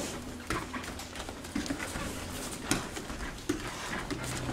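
Kenpo self-defence technique performed on a padded mat: a takedown with scattered sharp thuds and slaps of strikes and feet, several hits roughly a second apart.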